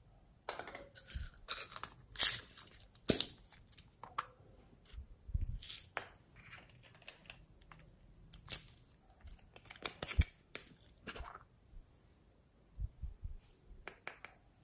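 Hard plastic toy containers handled close to the microphone: an irregular string of sharp clicks, taps and short scrapes, the two loudest clicks about two and three seconds in.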